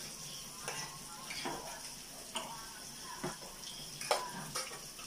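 Pork belly sizzling on a tabletop Korean BBQ grill pan, a steady hiss, with scattered clinks and scrapes of a metal spoon stirring in the pan and utensils on dishes.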